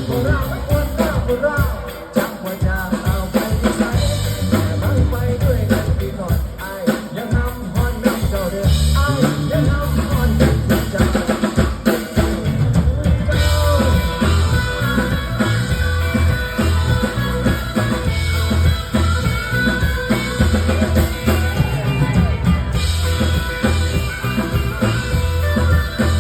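Live band playing a pop-rock song, with a steady drum kit beat and bass.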